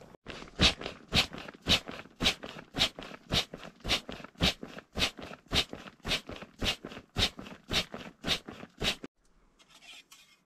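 Crunching footsteps at a steady walking pace, nearly two steps a second, stopping abruptly about nine seconds in.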